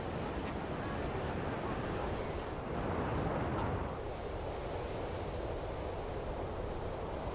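Ocean surf washing steadily, swelling about three seconds in and easing back a second later.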